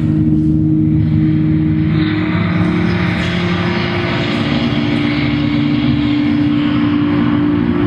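Loud droning experimental music: low tones held steady under a rumbling, noisy distorted layer that grows fuller about two seconds in.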